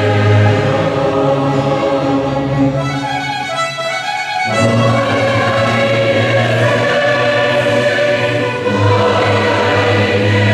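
Large mixed choir of men and women singing sustained chords with orchestra. The sound briefly thins to the upper voices about three seconds in, and the full chord returns a second and a half later.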